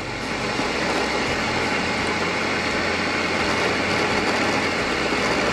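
Ninja countertop blender running at full speed, its motor and blades pureeing pineapple chunks, cucumber slices and hot water into a smooth juice; the noise builds up over about the first second, then holds steady.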